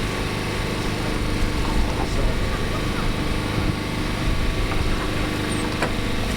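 An engine running steadily, a constant low drone with a faint held tone and a few light clicks.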